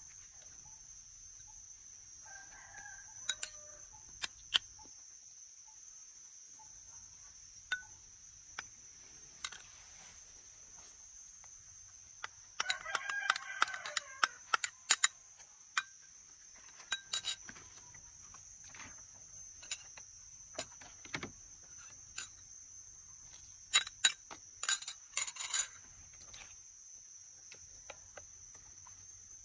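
A rooster crowing twice, a weaker crow about 3 seconds in and a stronger one of about two seconds near the middle. Scattered sharp clicks and taps come and go, and a steady high-pitched whine runs underneath.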